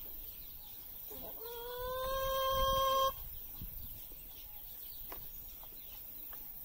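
A rooster crows once: a single long held call of under two seconds that rises slightly at the start and cuts off sharply, with faint clucks around it.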